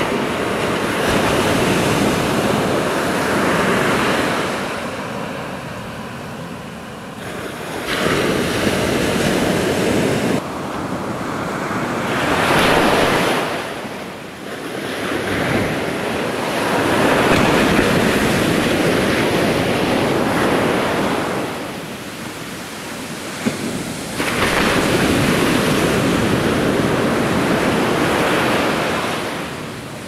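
Surf breaking on a sandy beach, its noise swelling and easing every few seconds, with wind buffeting the microphone. The level jumps abruptly a few times.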